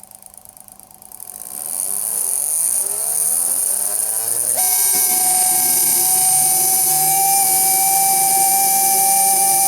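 Electric motor with worn-out bearings spinning up: a whine rising in pitch for a few seconds, then settling, about four and a half seconds in, into a steady, loud howl with a high hiss. The howl is the sign of the worn bearings.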